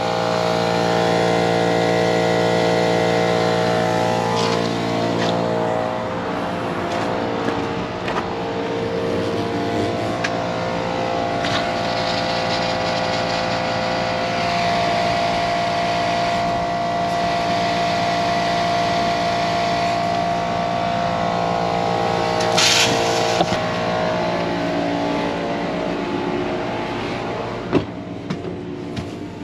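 Air compressor running steadily while it feeds compressed air into an RV's fresh-water lines to blow them out. A hiss of air joins in for a few seconds midway.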